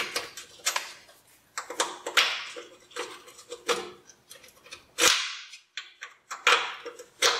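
Socket ratchet and breaker bar working rusty suspension nuts loose on a 1956 Chevrolet's front end: irregular metal clicks and clanks with several short ratcheting rasps and light ringing from the steel.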